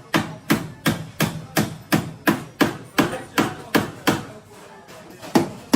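Steady hammer blows on a car's sheet-metal body panel, about three strikes a second, each with a short metallic ring: panel beating out accident damage. The strikes pause briefly near the end, then resume.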